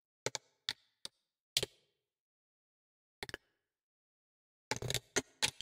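Computer keyboard keys and mouse buttons clicking. There are a few separate clicks over the first two seconds, a double click about midway, then a quick run of several clicks near the end.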